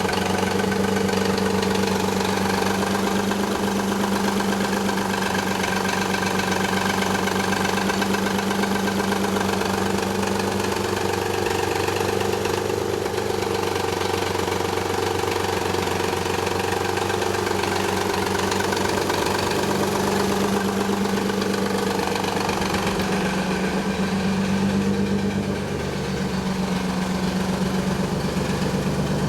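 1991 Nissan 300ZX's V6 engine idling steadily with its idle noise: the sign of a collapsed timing belt tensioner letting the belt run slack, along with noisy upper and lower idler pulleys.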